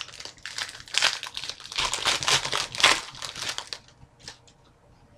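Crinkly trading-card packaging being handled, with a dense crinkling and rustling for about three seconds that then dies down to a few light taps.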